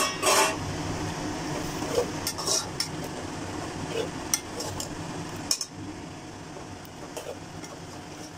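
Metal skimmer spoon clinking and scraping against a metal cooking pot as raw chicken pieces are stirred into frying onion-tomato masala. A brief louder rush of noise comes at the start as the chicken goes in, then scattered sharp clinks for several seconds.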